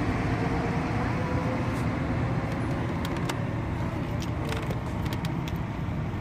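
A motor vehicle engine running with a steady low rumble, with a few faint ticks on top.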